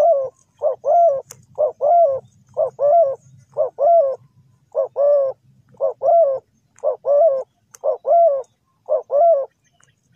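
Spotted dove cooing: a short coo followed by a longer one, the pair repeated about ten times, roughly once a second, stopping shortly before the end.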